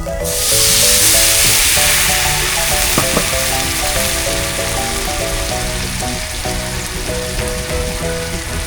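Food sizzling in a hot pan, starting suddenly just after the start as it goes in, loudest for the first second or two and then settling to a steady sizzle, over background music.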